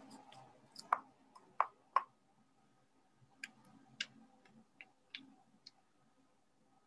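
Scattered small clicks and taps of objects being handled on a desk: three louder knocks in the first two seconds, then about half a dozen lighter, sharper clicks.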